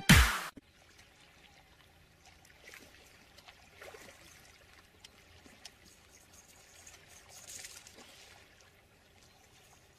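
Faint water splashing and lapping in the shallows as a hooked fish thrashes near the bank. It follows a short tail of loud music that cuts off about half a second in.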